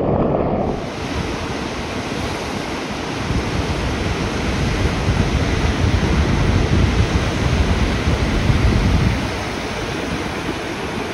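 Ocean surf breaking on a beach, with wind buffeting the microphone; the low rumble of the waves swells for several seconds in the middle, then eases.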